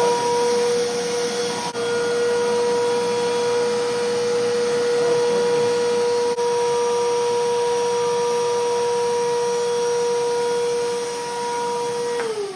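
Vacuum cleaner running at a steady whine while sucking a fishing line through a tubular tongue, then switched off near the end, its pitch falling as the motor winds down.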